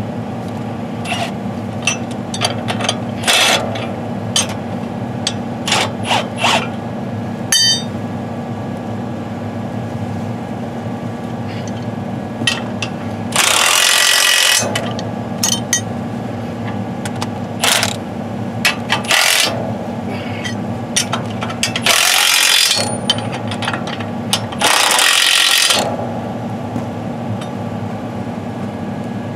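Cordless impact wrench running in three bursts of about a second each on the bolt of a John Deere 915 V-Ripper shank, during a shear-bolt repair. Many short metal clinks and taps of tools on the steel shank are heard between the bursts, over a steady idling tractor engine.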